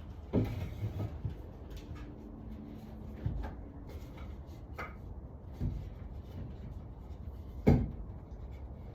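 Scattered knocks and taps of objects being handled, a few each second or two, the loudest a sharp thump near the end.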